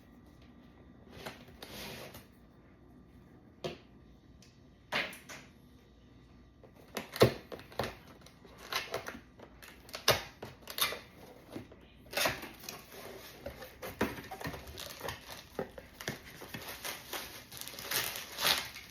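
Box and packaging being opened and handled: rustling, crinkling and tearing with scattered sharp clicks and knocks, one louder knock about seven seconds in, the rustling growing denser and steadier in the second half.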